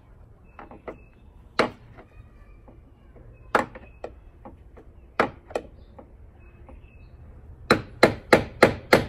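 Hammer blows on a truck door's hinge pin, driving it out. A few single strikes, then near the end a quick even run of about three blows a second.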